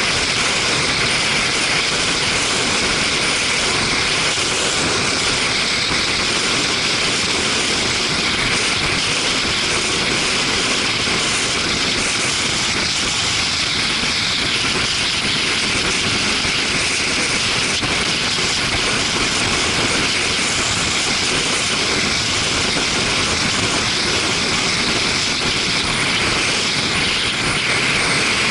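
Steady rush of wind and road noise from a motorcycle riding at speed, heard through an action camera's microphone, with no clear engine note standing out.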